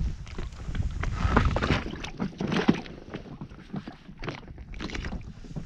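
Scattered knocks, clicks and rustles of hands and tackle as a small perch is taken off the hook in an inflatable boat, over a low rumble of wind on the microphone.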